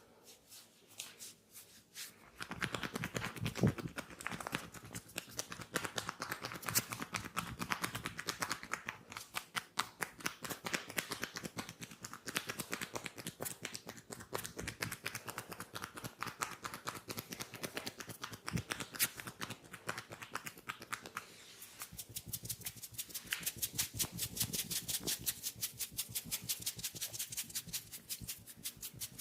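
Hands tapping and rubbing on the head and shoulders during a massage: dense runs of quick slaps and clicks starting about two seconds in, turning into a fast, even patter of strokes near the end.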